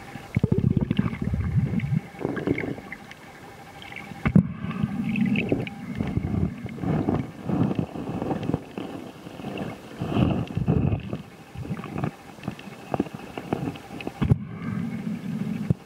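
Muffled underwater rumbling and gurgling picked up by a camera held underwater, coming in irregular surges every second or two with faint crackle.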